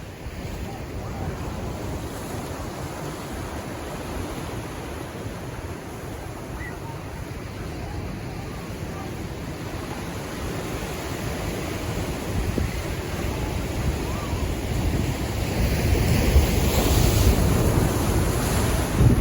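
Pacific Ocean waves washing in steadily, with wind rumbling on the microphone; a bigger wave surges in and the wash grows louder over the last few seconds.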